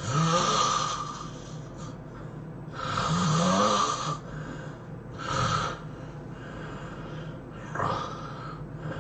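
A person snoring loudly, four snores a couple of seconds apart, the first two rising in pitch as they go.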